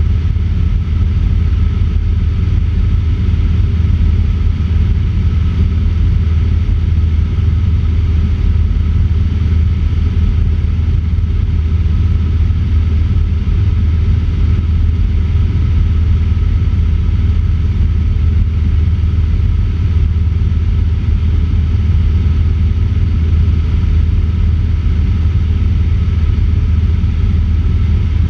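Cessna 150's Continental O-200 four-cylinder engine and propeller droning steadily in flight, with a low hum and a faint steady higher whine over the rushing air.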